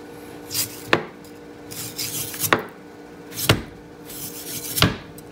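Chef's knife slicing thin pieces off a partly frozen moose roast: the blade saws through the stiff meat and knocks on a plastic cutting board four times, about once every second or so.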